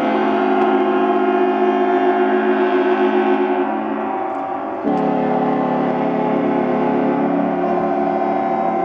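Many yachts' ship horns sounding together in a long, overlapping chord of steady tones. Some of the lower horns fade out a few seconds in. Just before the midpoint, a deeper horn cuts in again sharply.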